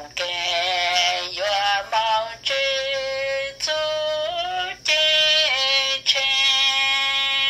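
A high voice singing a slow melody in long held notes, the phrases broken by short breaths about every second.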